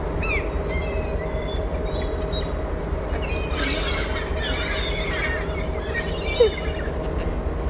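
Seagulls calling in short rising and falling cries over the steady drone of the ferry's engine, with a flurry of overlapping calls about four seconds in.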